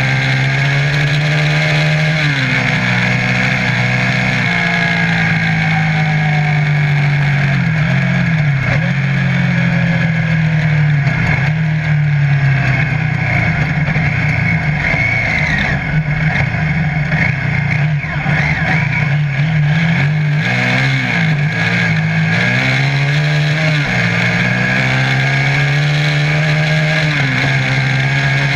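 Off-road buggy engine running hard on the move, its revs dipping and climbing again several times, over a steady rush of wind and tyre noise.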